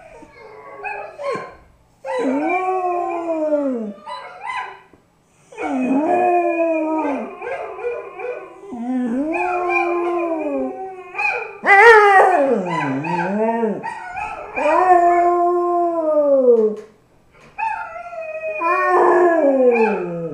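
A black dog howling: about six long howls in a row with short breaks for breath between them, each one arching and then sliding down in pitch at its end. There are a few short yips before the first howl.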